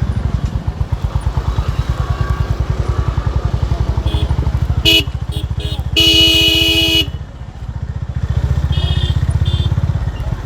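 Honda H'ness CB350's air-cooled single-cylinder engine thumping steadily as the motorcycle rides along. A horn gives short toots about five seconds in, then one loud blast lasting about a second, and a few more short toots near the end; the engine's pulse drops briefly after the long blast and picks up again.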